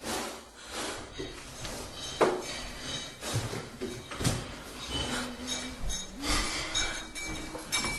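Irregular clattering: knocks, bangs and clinks of hard objects being struck and moved, the loudest blow about four seconds in, with a few short squeaky tones mixed in.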